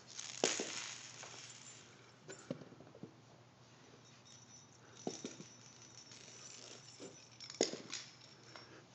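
Light knocks of small plastic balls landing on carpet and being batted by a cat, four separate knocks about two seconds apart, the loudest about half a second in and near the end.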